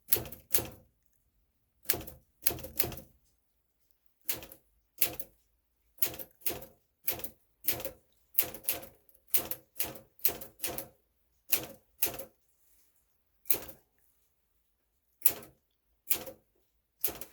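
1962 Smith-Corona Sterling manual typewriter being typed on slowly: about two dozen separate key strikes, each typebar snapping against the platen, at an uneven pace with short pauses between groups of letters.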